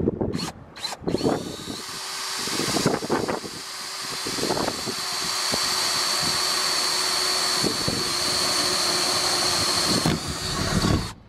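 Cordless drill boring the first pilot hole through a Mercedes Sprinter van's sheet-metal roof. It starts with a few short pulses, then runs steadily with a high whine as the bit works through the metal for about nine seconds, and stops abruptly near the end as it breaks through.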